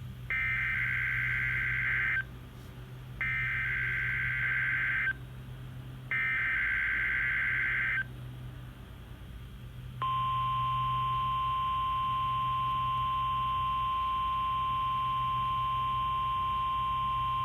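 NOAA Weather Radio Required Weekly Test signal. First come three buzzing bursts of the SAME (Specific Area Message Encoding) digital header, each about two seconds long and about a second apart. About two seconds after the last one, the steady single-pitch 1050 Hz warning alarm tone starts and holds.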